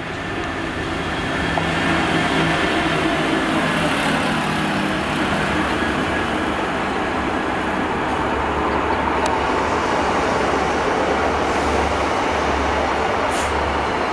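Class 66 diesel locomotive's two-stroke V12 engine running as it passes and draws away, with wheel and rail noise. It grows louder about a second and a half in, and there is a single sharp click about nine seconds in.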